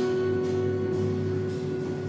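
Live chamber ensemble playing held notes that fade slowly.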